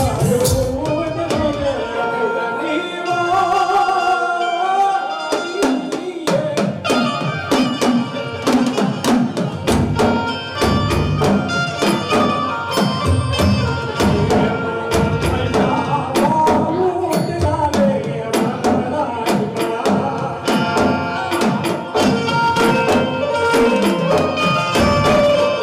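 Live folk music with rapid drum strokes under a wavering melodic line. The drums drop out about two seconds in and return about six seconds in.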